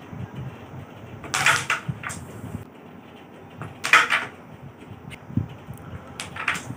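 Carrom striker flicked across a SURCO birch-ply carrom board, knocking sharply against the wooden carrom men and the frame. There are clacks about a second and a half in, a louder one about four seconds in, and another near the end.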